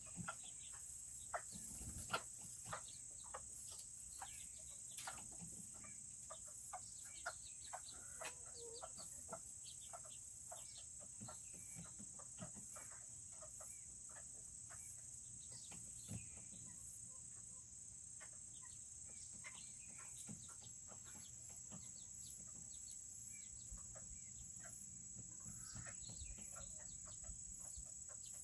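Serama bantam chickens clucking now and then, amid many small sharp clicks, over a steady high-pitched chirring of crickets.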